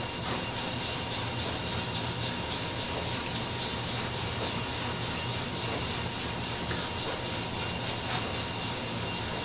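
Dye-soaked cloth rag rubbing back and forth over a maple board, a steady scrubbing hiss.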